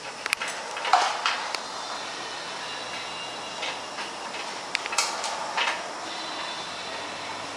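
Steel clinks and scrapes from the top beam of a two-post car lift being fitted and bolted onto its column: sharp clicks near the start, a louder scrape about a second in, and more clicks about five seconds in.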